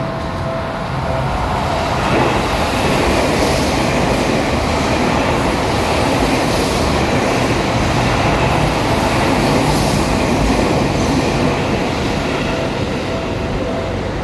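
Seibu Ikebukuro Line electric commuter train passing over a level crossing: a loud, steady rush and rumble of wheels on rail that builds about two seconds in. The crossing's warning bell rings its repeating two-tone clang before the train arrives and comes through again near the end.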